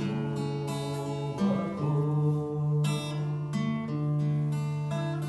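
A song: a voice singing one long drawn-out word over strummed acoustic guitar.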